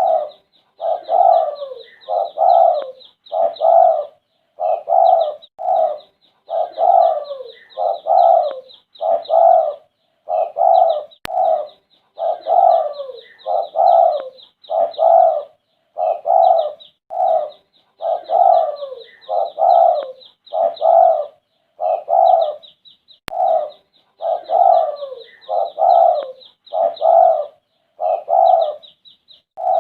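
Spotted dove cooing continuously, low coo notes repeated about once a second in phrases with short pauses between them. Faint high chirping runs underneath.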